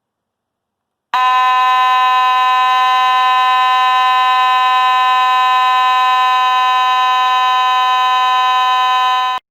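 Faraday 5920 mechanical fire alarm horn sounding one loud, steady, continuous tone. It starts abruptly about a second in and cuts off abruptly near the end.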